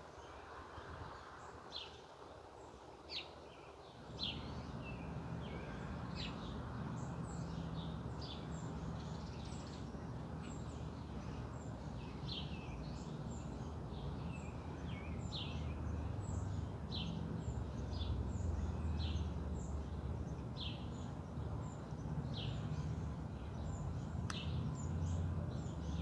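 Small birds chirping: short, high, downward-sliding notes repeated about one or two a second. A steady low rumble comes in about four seconds in and runs under them.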